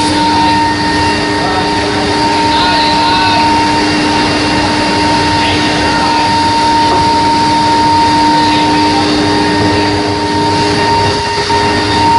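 Induction heating machine running: a steady high-pitched whine and a lower hum over loud, constant machinery noise.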